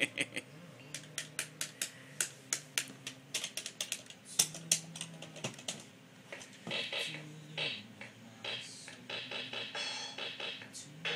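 Electronic toy piano sounding as its plastic keys are pressed: a run of sharp clicking taps in the first half, then short electronic notes over a steady low tone in the second half.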